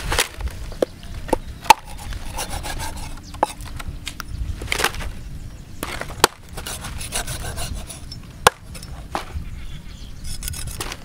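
A cleaver and a wet stingray being worked on a wooden chopping block: rubbing and scraping with scattered sharp knocks, the loudest about two seconds in and again about eight and a half seconds in.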